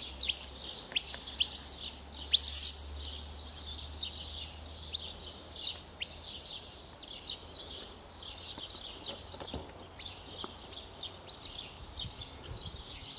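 Shepherd's whistle commands to a working sheepdog: a handful of sharp rising whistles in the first seven seconds, the loudest about two and a half seconds in. Behind them is a steady chatter of birdsong and a low rumble of wind on the microphone.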